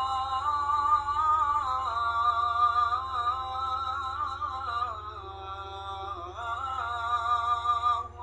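Intro music: a slow melody of long, gliding sung notes over a steady low drone.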